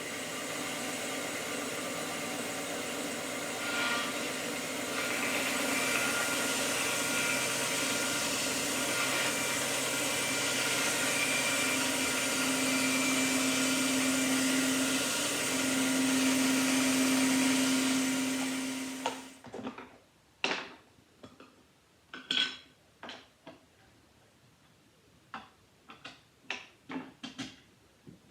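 An electric power tool's motor runs steadily for about nineteen seconds and then stops, followed by a few scattered light knocks and clicks of wood and tools being handled.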